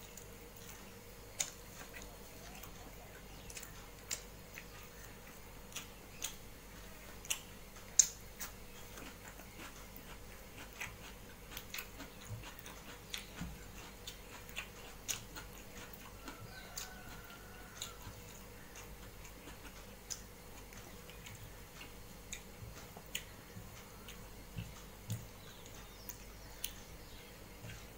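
Eating rice and curry by hand from a metal plate: fingers mixing and scooping rice, with chewing and scattered sharp clicks, the loudest about eight seconds in.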